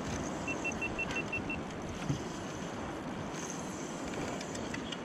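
Wind and sea noise on a small boat: a steady rush of wind over the microphone and lapping water. Near the start there is a quick run of about seven short, faint high beeps.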